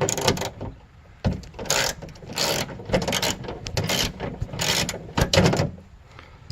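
Hand ratchet with a 10mm socket clicking in a series of short back-and-forth strokes, loosening a bolt.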